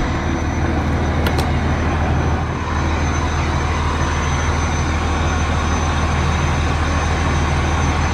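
Flatbed straight truck's engine idling steadily: an even low hum with a thin high whine above it. Two light clicks come about a second in.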